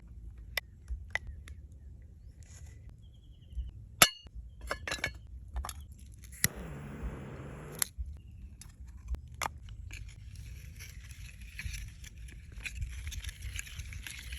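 Scattered sharp clinks and knocks of hard objects being handled, with one loud knock about four seconds in and a brief rushing noise lasting about a second a little later.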